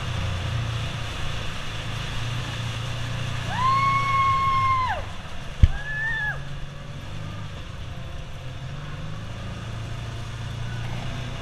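Side-by-side UTV engine running steadily at low speed through mud. About four seconds in, a long, high held call, and just before six seconds, a sharp knock followed by a shorter call.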